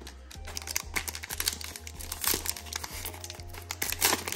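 Foil trading-card pack wrapper crinkling as it is handled and torn open by hand, with the loudest crackle near the end.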